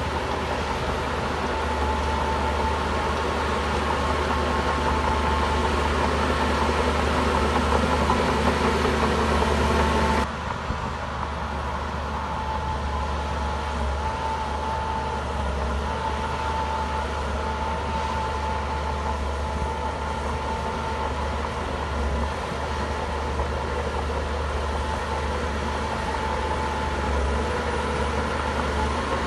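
Heavy diesel engine of earthmoving machinery running steadily under work. About ten seconds in, the sound changes abruptly and becomes duller and slightly quieter.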